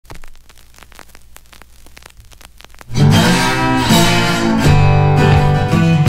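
Intro music led by guitar, coming in suddenly and loudly about three seconds in, after a quieter stretch of faint scattered clicks.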